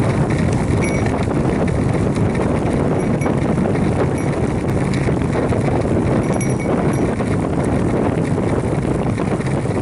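Steady rush of wind and road noise on the microphone of a camera riding on a road bicycle, with faint small clicks and rattles scattered through it.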